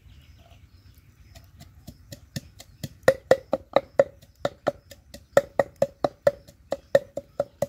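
Ginger and garlic being pounded in a wooden mortar with a wooden pestle: rapid knocks, about four a second, each ringing briefly. They start soft and grow much louder about three seconds in.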